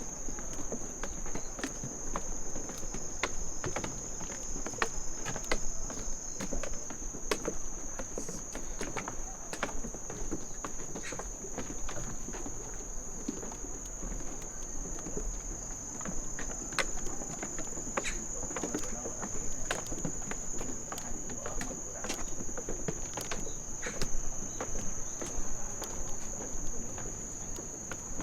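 Insect chorus trilling in one steady high band, with frequent light clicks of footsteps on the walking path.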